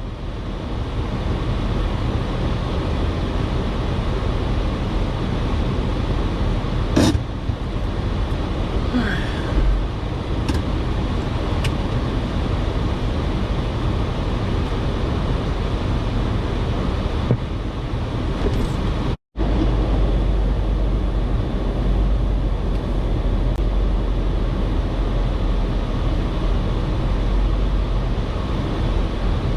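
Jeep Wrangler driving off-road: steady engine and driving rumble, with a sharp knock about seven seconds in and a few lighter clicks after it. The sound drops out completely for a moment about two-thirds through.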